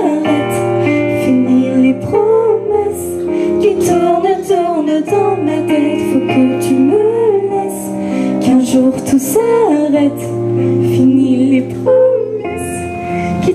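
Two women singing a pop song live into microphones over an instrumental backing of held chords, bass and light percussion.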